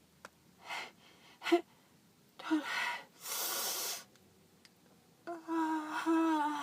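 Breathing of a person with a heavy head cold: a gasping inhale, a short sharp catch, a long breathy exhale, and near the end a drawn-out voiced 'ahh' held for over a second as a sneeze builds up and gets stuck.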